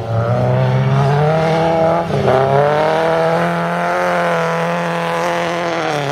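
Autograss race car engine running hard at high revs past the track side, its pitch dipping sharply and climbing again about two seconds in, then easing down slowly towards the end.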